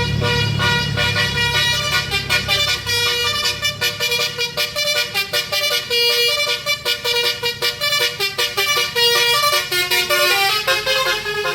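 A tour bus's basuri musical horn playing a fast melody of short, changing horn notes. A low engine rumble fades away in the first couple of seconds.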